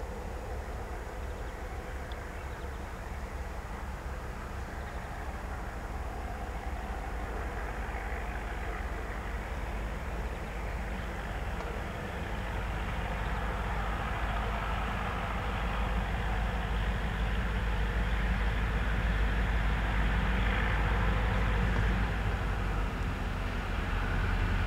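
SŽ class 664 diesel locomotive approaching slowly. Its engine rumble grows steadily louder as it comes closer.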